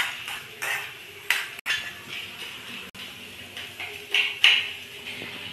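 Stainless steel pan being scraped out and knocked against a plate as roasted dried red chillies and spices are emptied onto it: a series of short metallic scrapes and clatters, the loudest about four and a half seconds in.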